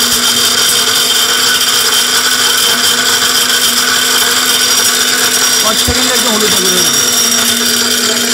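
Stainless-steel high-speed swing-type dry grinder, a 3000 W electric powder grinder, running steadily under load as it grinds whole turmeric to powder. It makes a loud, even whine that holds one pitch over a constant hiss.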